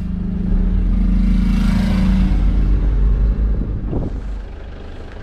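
Pickup camper's engine and road noise heard from inside the cab as it drives off. The low hum gets louder about half a second in, holds, then eases off after about three and a half seconds.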